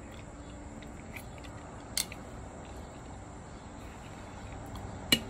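Quiet outdoor background with a steady high-pitched insect drone, like crickets. A single click comes about two seconds in, and a few sharp clicks come near the end.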